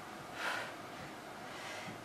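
A woman's forceful out-breath of effort about half a second in, taken while doing tricep dips in a weighted vest.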